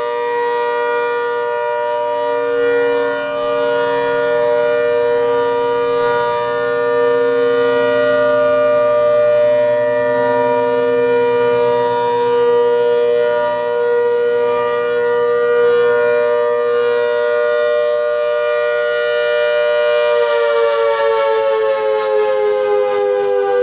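ACA Hurricane 130 MKII outdoor warning siren sounding its steady Alert signal, a two-note chord from its 8/10 port ratio. About twenty seconds in it begins to wind down, the chord gliding lower in pitch as the rotor slows.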